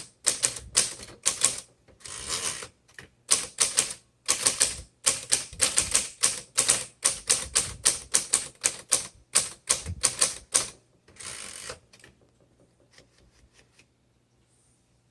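1938 Royal Model O manual portable typewriter being typed on: a fast, uneven run of key strikes, several a second, with two longer rasping sounds about two seconds in and around eleven seconds in. The typing thins to a few faint clicks after about twelve seconds and stops before the end.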